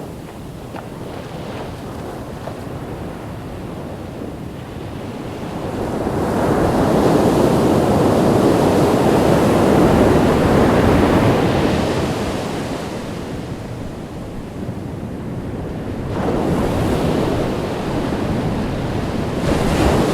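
Ocean surf breaking and washing up a beach. A wave swells up about six seconds in and dies away after about twelve seconds, and further surges build near the end.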